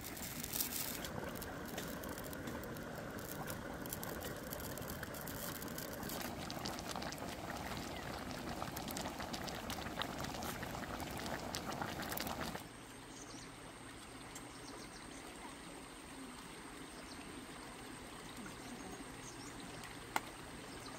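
Water trickling and bubbling: a shallow rocky stream, and a wok of fish curry boiling hard over a wood fire, with many small pops and ticks. About twelve and a half seconds in, the sound drops to a quieter, steady trickle, with one sharp click near the end.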